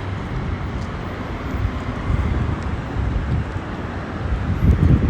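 Outdoor street noise of passing traffic, with wind rumbling on the microphone that grows louder in gusts near the end.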